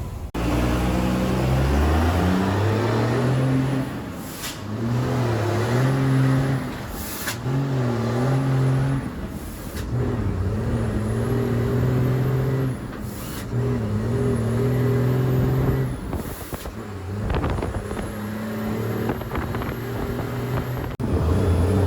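Ford Cargo 2428 truck's diesel engine with a straight-through exhaust pulling hard under load, its pitch climbing through each gear and dropping at each shift, about four shifts in all.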